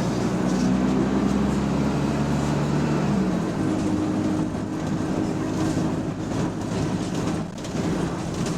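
Bus engine running under way, heard from inside the bus; the engine note changes about three seconds in.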